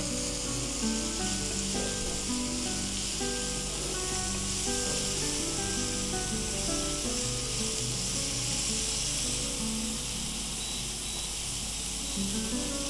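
Diced chicken frying in oil in a non-stick pan, a steady sizzle, with instrumental background music playing over it.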